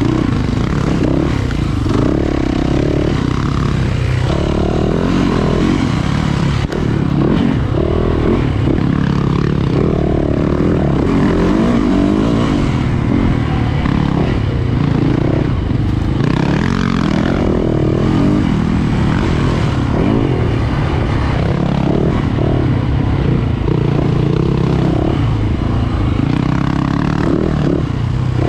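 Yamaha YZ450F dirt bike's single-cylinder four-stroke engine revving up and down over and over with constant throttle changes through a tight woods trail, heard close from a helmet camera. A brief knock comes about six and a half seconds in.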